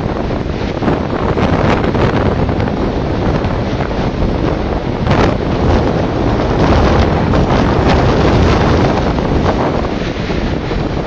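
Gale-force jugo wind (south-easterly, about 8 Beaufort) buffeting the microphone in a steady loud rush with sharp gusts, over waves breaking and washing onto the shore.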